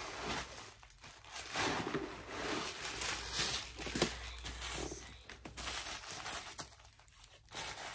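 Packing stuffing and a nylon backpack rustling and crinkling in irregular bursts as they are handled and the stuffing is pulled out.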